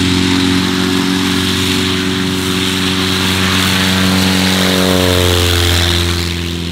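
NX Cub light aircraft's 215 hp Lycoming piston engine and propeller running steadily at power as it rolls along a grass strip. Its pitch drops a little as it passes close by, about five seconds in.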